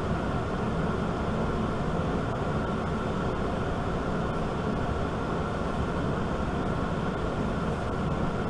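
A steady, even rushing noise with a low rumble and no breaks, like air moving from a running blower.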